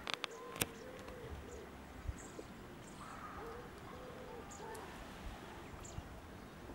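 A bird cooing in repeated low phrases, with faint high chirps of small birds and a few sharp clicks in the first second.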